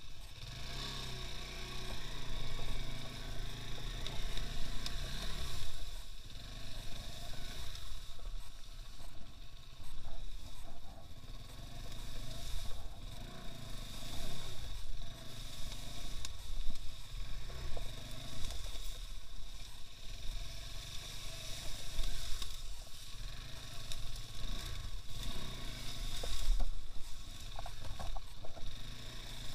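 Engine of a two-wheel-drive off-road motorcycle running, rising and falling in surges every second or two as it is ridden through swamp and mud.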